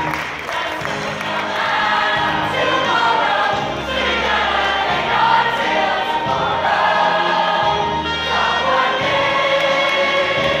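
Large stage cast singing together as a chorus over instrumental accompaniment with sustained low notes, as at a musical's finale curtain call.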